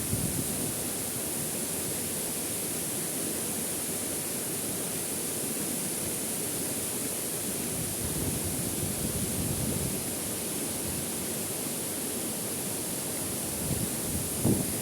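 Steady rush of a waterfall pouring into a rocky pool. A couple of short low thumps come near the end.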